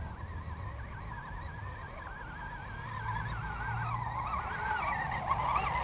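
Electric motor and gear whine of an Axial Twin Hammers RC rock racer driving up toward the microphone, its pitch wavering with the throttle and growing louder as it nears.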